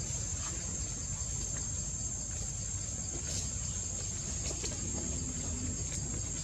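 Steady high-pitched insect chorus buzzing without a break, over a low steady rumble.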